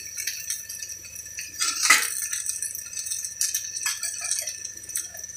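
Elephant foot yam pieces coated in masala frying in an iron kadai: a steady sizzling hiss with scattered crackles and a few sharper pops, the loudest about two seconds in.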